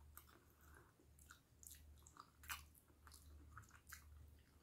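Faint chewing and mouth sounds of a person eating a fried fritter from a spoon, with scattered soft clicks and smacks.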